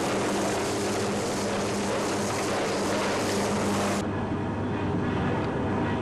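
Steady roar of steel melt shop machinery with a low electrical hum under it. The sound changes abruptly about four seconds in, becoming duller.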